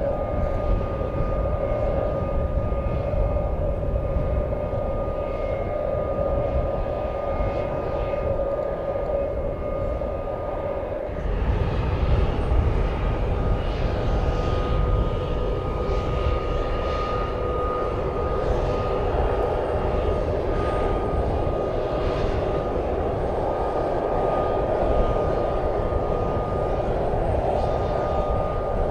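Bombardier Global 7500 business jet's turbofan engines running at low power as the jet taxis: a steady jet whine with a constant high tone over a low rumble. The sound changes abruptly about eleven seconds in and becomes louder and fuller.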